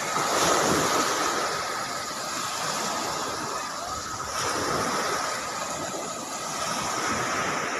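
Small waves breaking and washing up a sandy beach, rising and falling gently in slow swells, with some wind on the microphone.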